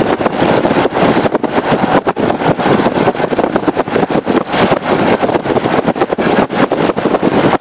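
Loud, gusty wind noise buffeting the microphone, over the running noise of a vehicle, with many brief sharp drops in level as the gusts hit.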